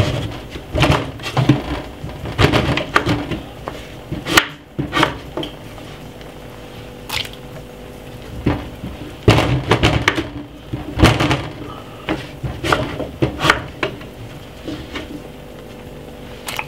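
Knife cutting through raw sweet potato against a wooden chopping board: a series of irregular sharp knocks and cracks.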